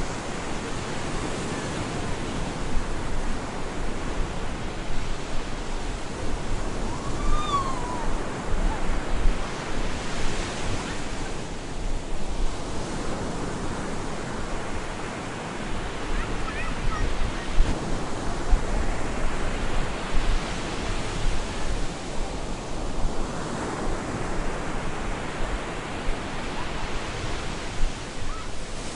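Stormy surf on a beach: waves breaking and washing in as a continuous rush of noise that swells and eases every seven or eight seconds, with wind.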